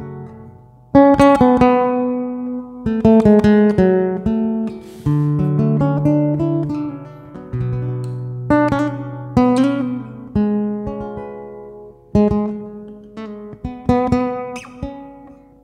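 Solo acoustic guitar playing a song's intro: chords struck every second or two and left to ring and fade, with short picked runs of notes between them.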